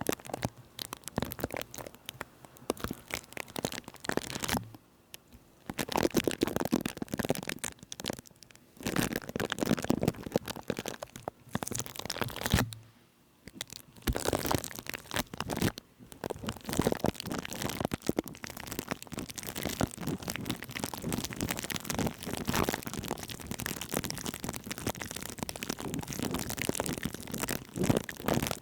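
Close-miked ASMR trigger sounds: dense crackling and crunching made right at the microphone, in irregular bursts with short quiet gaps about five and thirteen seconds in.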